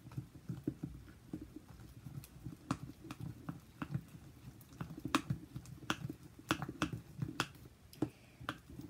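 A metal spoon stirring sticky glue slime in a plastic container: irregular clicks of the spoon against the container, about one or two a second, over a wet, squelching churn. The glue is clumping up as it is mixed with laundry-detergent activator.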